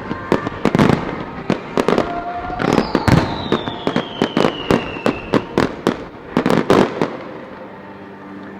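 Fireworks display: a rapid volley of loud bangs from bursting shells, with a long whistle falling in pitch from about three seconds in. The bangs stop about seven seconds in, leaving a quieter background.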